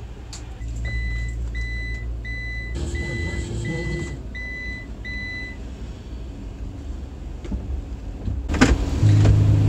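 A car's warning chime beeping seven times, evenly spaced, over a low steady rumble inside the car, with a sharp knock near the end.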